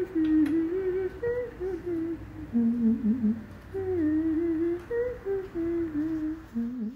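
A woman humming a tune by herself with no accompaniment, in short phrases, stopping just before the end.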